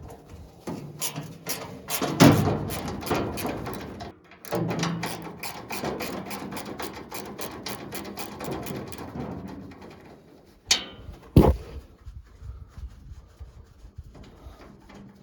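Hand tools working a fastener loose on a mini excavator's panel: quick runs of rapid clicking with some metal rattling, then two sharp knocks about 11 seconds in.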